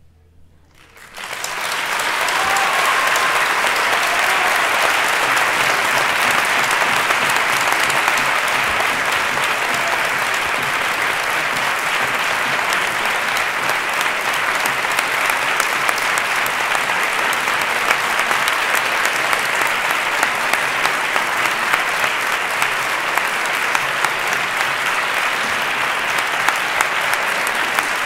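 Audience applauding: after a brief hush following the final note, a burst of clapping comes in about a second in and carries on steadily.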